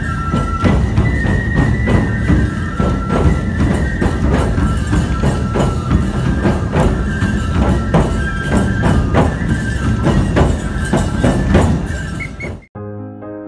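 Nebuta festival hayashi played live: big taiko drums beaten in a fast rhythm, hand cymbals clashing and bamboo flutes holding a high melody. About a second before the end it cuts abruptly to a soft electric piano tune.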